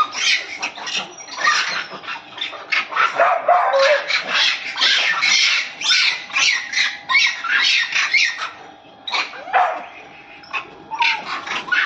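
A pack of dogs barking and yelping in a fight, many short sharp calls in quick succession, easing off briefly about eight seconds in.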